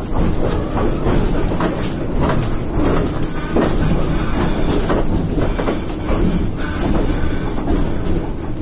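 Rail vehicle running along the track, its wheels clattering steadily over the rails.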